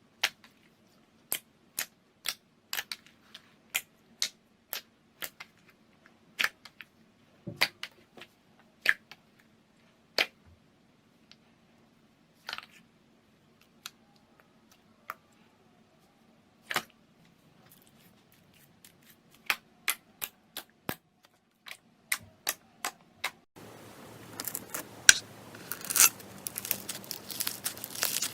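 Slime being squeezed and poked, making sharp clicking pops about one or two a second, sometimes with short pauses. Near the end the clicks give way to a dense crackling.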